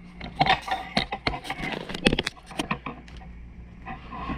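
A quick, irregular run of light clicks and knocks for about the first two and a half seconds, then fewer, over a steady low electrical hum.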